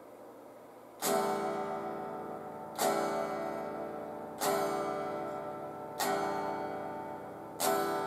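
Electric guitar strummed across all six strings, five strums about a second and a half apart, each chord ringing and fading.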